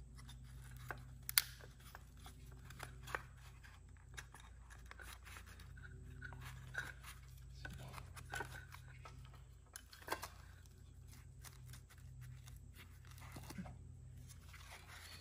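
Scattered small plastic clicks and scrapes as a BMW E46 side-mirror actuator housing is handled and worked loose from the mirror's backing plate, with one sharper click about a second and a half in, over a low steady hum.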